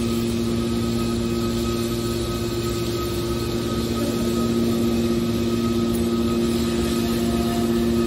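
Hydraulic scrap metal baler running under power: a steady, droning pump-and-motor hum with a constant whine while a hydraulic ram extends.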